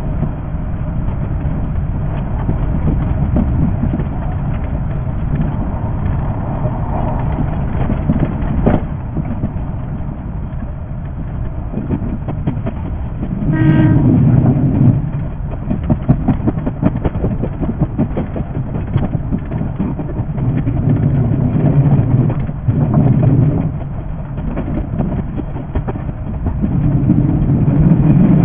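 JR 381 series electric limited express train running, with a steady rumble and a rapid stream of wheel clicks over the rail joints. A short horn toot sounds about halfway through.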